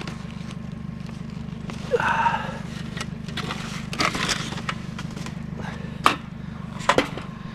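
A car engine idling steadily, with a few knocks and rattles of aluminum scrap being handled, the sharpest about six and seven seconds in.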